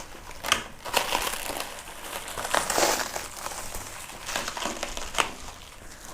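Stiff hard-foam and plastic packaging being cut and pulled open with a kitchen knife: irregular crinkling, crunching and sharp snaps, with a longer, louder rustle about two and a half seconds in.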